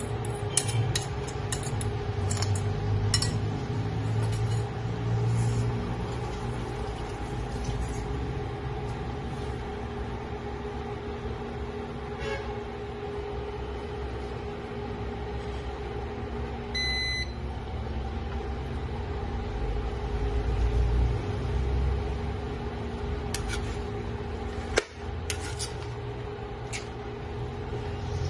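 Chicken curry simmering in a wok over a steady appliance hum, with scattered small ticks and pops. There is one sharper click about 25 seconds in.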